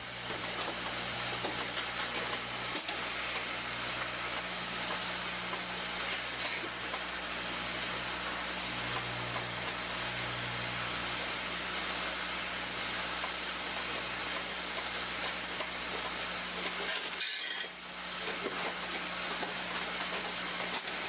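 Automatic poly bagging machines running steadily: an even hiss over a low mechanical hum, with a brief drop about 17 seconds in.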